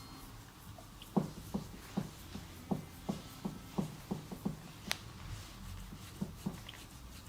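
Hands patting and tapping during a head and back massage: a run of short, soft pats, about two to three a second, with one sharp click about five seconds in.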